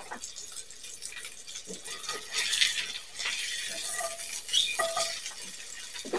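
Steak sizzling in a cast iron skillet as it is turned with metal tongs. The sizzle swells in bursts, with a few clinks of the tongs against the pan.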